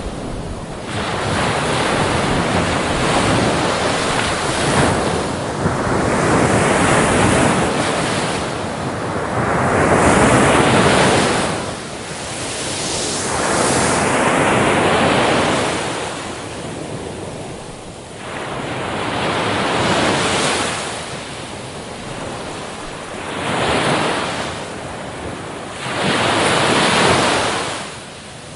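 Waves washing in one after another: a rushing surge of water that swells and falls away every few seconds.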